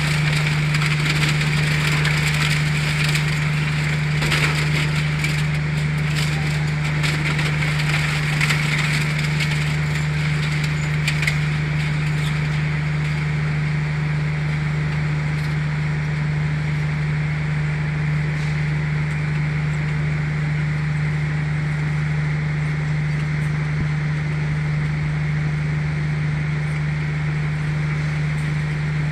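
Twin-shaft scrap shredder running with a steady low hum, its cutter discs crunching and cracking through scrap for the first dozen seconds or so, then mostly just the hum of the running machine.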